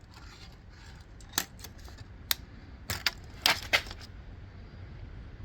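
Several sharp metallic clicks and clinks, unevenly spaced, from something handled against the jaws of a Parker vise while they are being measured.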